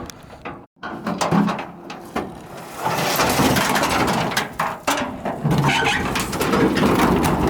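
Clanking and scraping as the loosened mini truck bed is lifted and shifted off the frame: a few knocks at first, then a dense rattling clatter from about three seconds in.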